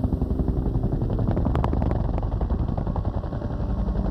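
Helicopter rotor beating in a rapid pulse, about ten beats a second, with a few sharp cracks about one and a half seconds in.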